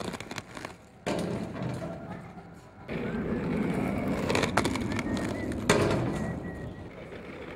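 Inline skate wheels rolling on a concrete sidewalk, with a couple of sharp knocks from skates striking a metal driveway barrier or the ground about two thirds of the way through, the second the loudest. The rolling cuts out briefly near the start and again about a second and three seconds in.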